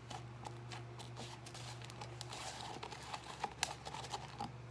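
Slime with snow powder mixed in being kneaded by hand in a plastic tub: faint, irregular crackly clicks and squishes, over a steady low hum.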